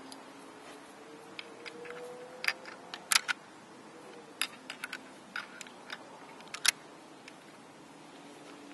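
Sharp metallic clicks and clacks from the action of a Japanese Type 99 bolt-action rifle being handled while cartridges are loaded into it, in several short clusters, the loudest about three seconds in.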